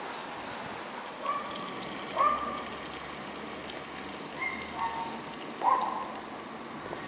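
A dog barking, about five short barks at uneven intervals, over a steady background hiss.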